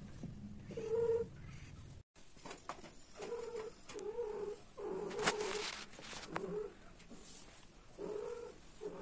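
Domestic cats calling while mating: short repeated yowls at a fairly steady pitch, one near the start and a run of them from about three to seven seconds in, then more near the end. A sharp click about five seconds in is the loudest moment.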